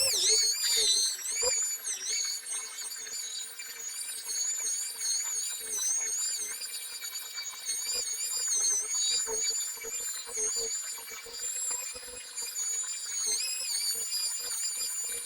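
Power sander running on car paint during colour sanding, a steady high whine whose pitch wavers up and down as it is worked across the panel.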